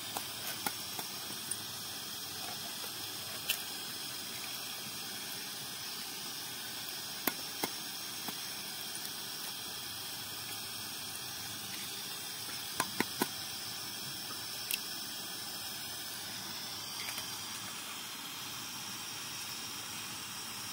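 Raw eggs tapped and cracked against the rim of a steel bowl: a few sharp taps, a quick cluster of three about two-thirds of the way in, over a steady hiss.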